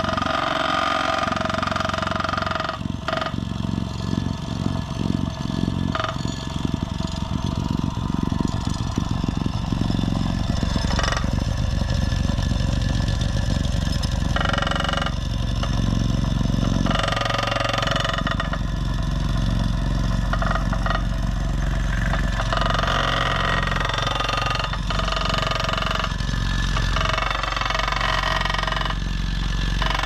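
Homemade electric vibrating plate compactor running steadily as it packs down loose asphalt crumb, the steel plate rattling over the gravelly surface.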